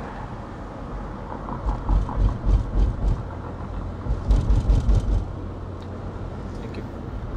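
Road noise inside a moving car: a steady low rumble from the tyres and engine, with heavier low thumps about two seconds in and again around four to five seconds in.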